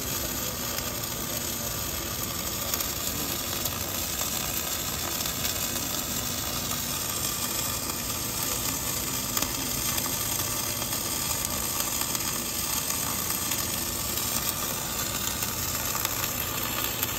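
Steady crackling sizzle of a wire-fed (MIG/MAG) welding arc from an EWM automatic pipe-welding system, laying a bead around a steel pipe.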